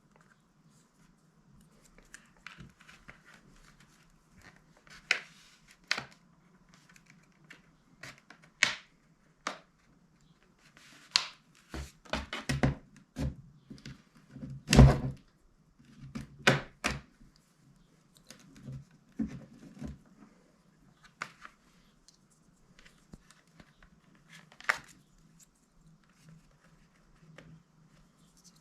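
A pry tool working around the edge of a Samsung Galaxy Tab A's back cover to separate it from the tablet: irregular clicks and knocks of plastic, with a louder knock about halfway through.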